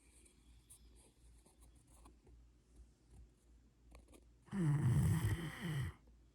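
Sleeping Rottweiler snoring: a quiet stretch with faint ticks, then one loud, rumbling snore about four and a half seconds in, lasting about a second and a half.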